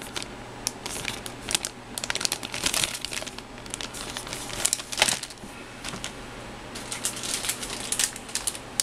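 Clear plastic bag crinkling in the hands as a bagged plastic model-kit runner is handled and moved, a run of irregular crackles.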